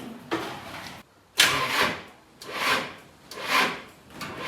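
A van's diesel engine being cranked by its starter but not firing. It comes in suddenly about a second in and goes on in labouring swells about once a second. The engine won't start even with its fuel injection pump freshly retimed, and the owner takes this for a timing fault that means stripping the engine down.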